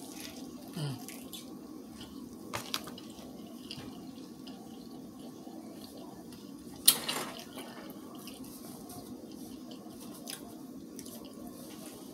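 A person chewing a pork chop, with wet mouth and smacking sounds over a steady low hum. A few short clicks break in, and one sharp, loud click comes about seven seconds in.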